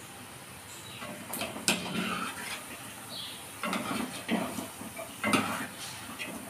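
Wire-mesh skimmer scraping and knocking against an earthen pot as palm-fruit fritters are scooped out of hot oil, over the sizzle of deep frying. The first second is only a low frying hiss; then come several sharp clinks and scrapes.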